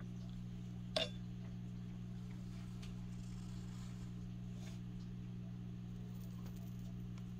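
Pencil sketching on paper: one sharp click about a second in, then faint scratchy pencil strokes over a steady low hum.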